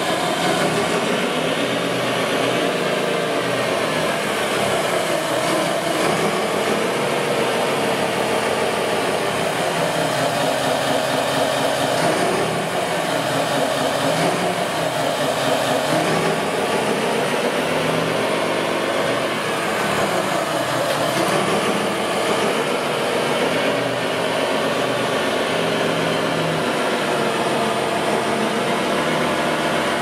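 Radio-controlled scale construction machines running: their motors and hydraulic pumps make a steady mechanical whirr, with faint whines that slide in pitch now and then.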